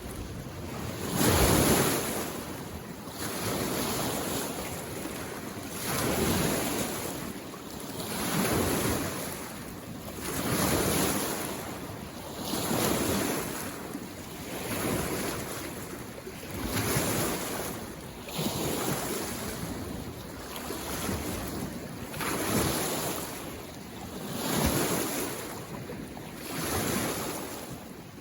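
Small lake waves washing in on the shore, one swell about every two seconds, the loudest about a second and a half in.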